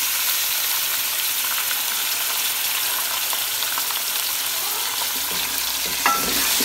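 Raw boneless chicken pieces sizzling steadily in hot oil with fried garlic in a steel kadai, just added to the pan. A wooden spatula stirs and scrapes against the metal near the end.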